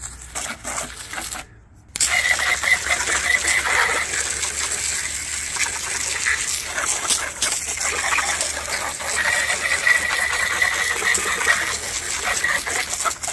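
Jet from a garden hose spray nozzle hissing and spattering against the plastic underside of a robot lawn mower, rinsing grass clippings off its blade disc and treaded wheels. The spray runs steadily from about two seconds in, after a brief break.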